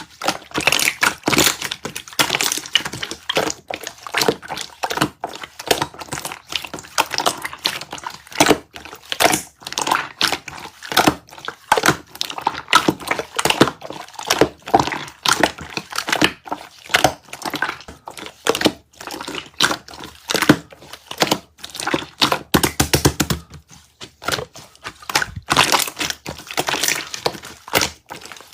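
Slime being squeezed and pressed by hand: a continuous, irregular run of crackling, popping clicks.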